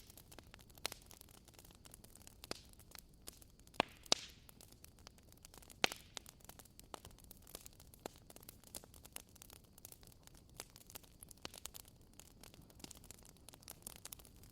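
Wood fire crackling in a fireplace: frequent small pops and snaps over a soft low rumble, with a few louder pops around four and six seconds in.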